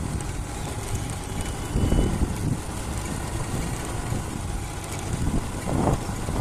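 Vehicle ride on a broken road: steady engine and road rumble with wind on the microphone, with louder surges about two seconds in and near the end.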